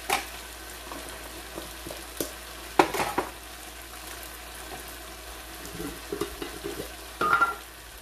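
Tomato and onion sauce sizzling steadily in a frying pan, with a few sharp knocks of a metal spoon about three seconds in, light clicks later, and a short ringing clink near the end.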